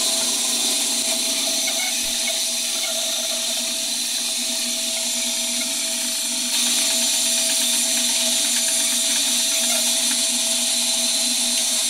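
Small benchtop band saw running with a steady hum and hiss while a wooden board is fed into the blade, cutting along a curve through relief cuts. The sound steps up slightly louder about six and a half seconds in.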